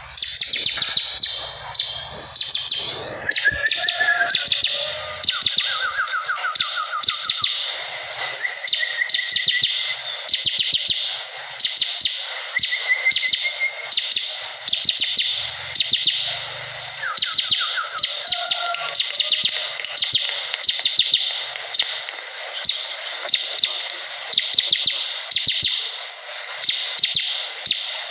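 Bar-winged prinia (ciblek) singing loudly and without pause: rapid, high-pitched chattering trills in phrases of a few seconds each, separated by brief breaks.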